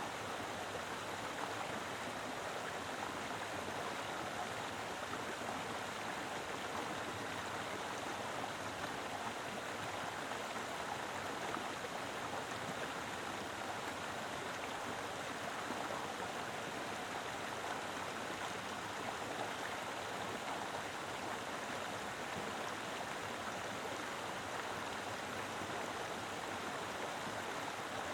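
Mountain river flowing, a steady rush of water over rocks with no change throughout.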